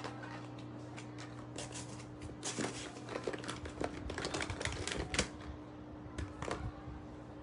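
Irregular light clicks and rattles of small objects being handled close to the microphone, busiest in the middle, over a steady low hum.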